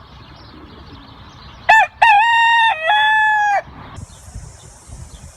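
Rooster crowing once: a full cock-a-doodle-doo of about two seconds, starting a little under two seconds in, with a short first note followed by two long held notes.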